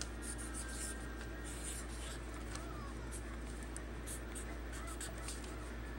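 Writing by hand on paper: a quick, irregular run of short scratchy pen strokes, over a steady low hum.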